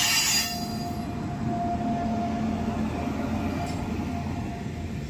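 Indian Railways WAP-7 electric locomotive pulling a passenger train out of the station and passing close by: a steady rumble of wheels on the rails with a constant whine over it. A short burst of hiss comes in the first half-second.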